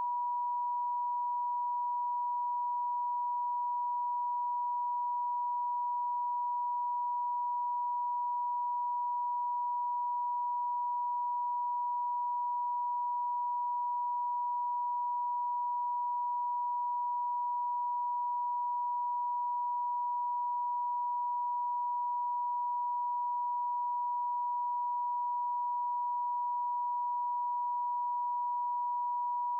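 Pure electronic sine tone, a generated Rife frequency, holding one unwavering pitch at an even level with nothing else heard.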